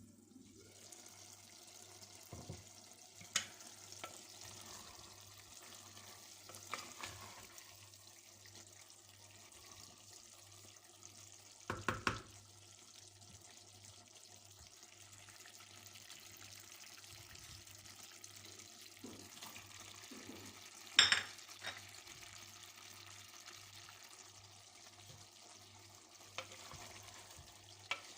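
Food sizzling steadily in a hot pan, with a few sharp clinks of a utensil against the pan while it is stirred; the loudest clink comes about 21 seconds in.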